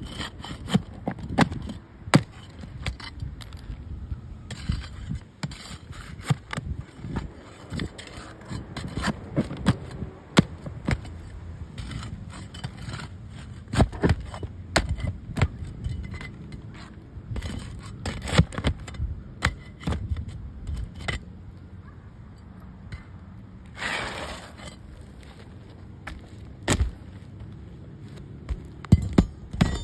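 Asphalt roof shingles being worked loose by hand and with a thin tool: scraping with many scattered sharp cracks and clicks as the tabs are pried up and bent.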